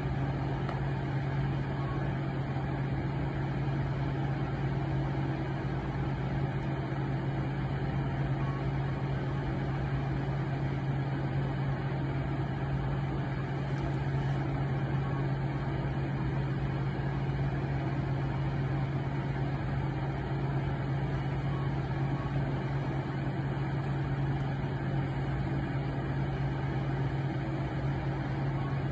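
Steady low mechanical hum, a constant drone that does not change in pitch or level.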